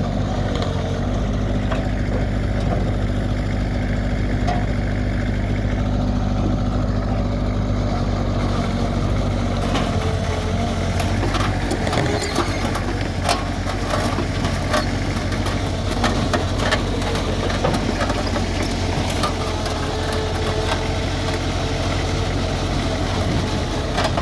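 Diesel engine of heavy construction equipment running steadily. From about ten seconds in, many short metallic clanks and knocks sound over the engine.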